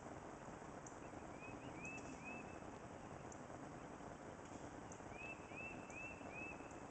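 A bird chirping in two short runs of quick, rising-and-falling notes, three about a second in and four about five seconds in, over a faint steady background noise.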